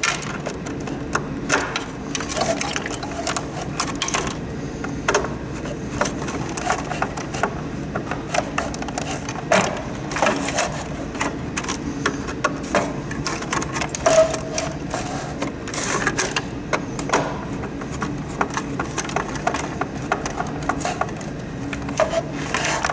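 Hand tools and small parts clicking and knocking irregularly as a humidifier is taken apart, over a steady low hum.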